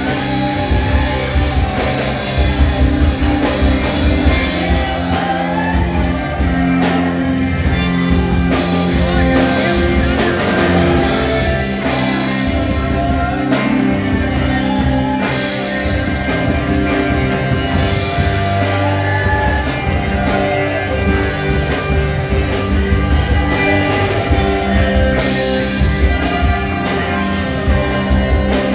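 Live church worship band playing a rock-style song, with electric guitar, bass and drums and a melody line over them.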